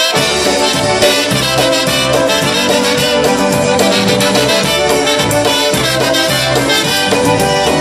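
Live polka band playing an instrumental intro: two trumpets in the lead with fiddle and accordion over a steady beat.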